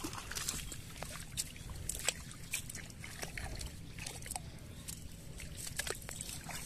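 Water splashing and sloshing in shallow water as hands sort fish and weeds in a fishing net: many short, irregular splashes and drips.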